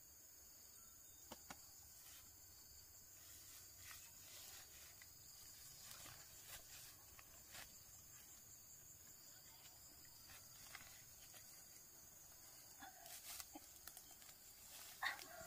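Faint rural ambience: a steady high-pitched insect drone, crickets or cicadas, with scattered soft clicks. Just before the end comes a sharp click and the start of a short falling animal call.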